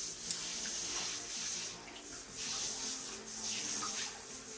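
Hand shower head spraying a steady single thick jet of water into a bathtub, the water hissing and splashing on the tub. A single sharp click comes about a third of a second in.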